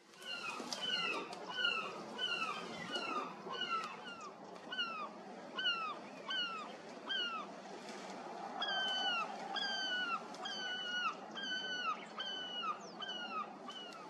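An animal calling: a repeated series of short, clear, falling notes, about two a second. There is a pause of a second or so just after the middle before the calls resume.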